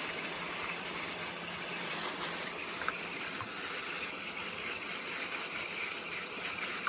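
Heat gun blowing steadily, a constant even hiss of air, with one small click a little under three seconds in.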